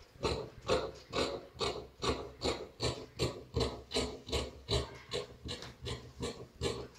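Large tailoring scissors snipping steadily through cloth along a marked line, about three snips a second.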